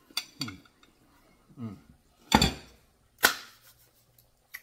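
A man eating: lip smacks and short falling 'mmm' hums of enjoyment, then two loud sharp smacks about a second apart.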